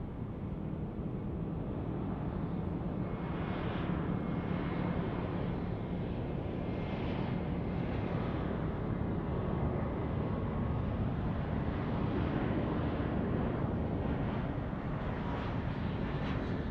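Airbus A321-200 jet airliner on final approach, its engines heard as a steady jet noise with faint whining tones, growing a little louder over the first few seconds as it comes closer.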